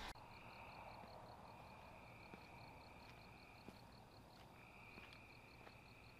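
Faint night insects: a cricket's steady high trill that breaks off briefly twice, over a second insect chirping in an even pulse about five times a second.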